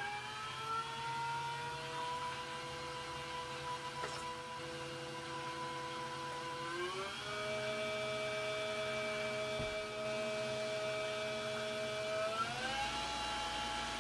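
Precision Matthews PM-728V-T milling machine's spindle drive running with nothing in the spindle during break-in: a steady whine that steps up in pitch three times, about half a second in, halfway through and near the end, as the speed is raised incrementally toward maximum RPM.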